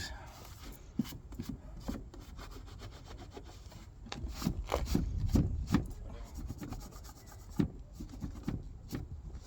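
Wiping dirt and cobwebs out of a car's tail-lamp recess: irregular rubbing strokes, busiest about four to six seconds in.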